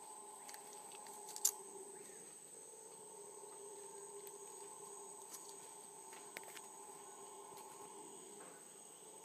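Faint, steady high-pitched shrilling of rainforest insects over a low, steady drone that fits distant howler monkeys calling. A sharp click about one and a half seconds in, with two fainter clicks later.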